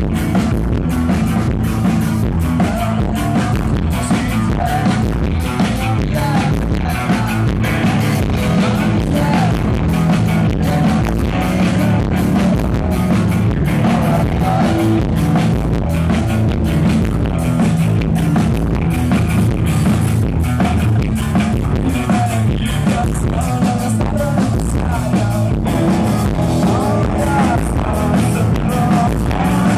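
Live rock band playing: electric guitars and drum kit with a steady beat, and singing over them.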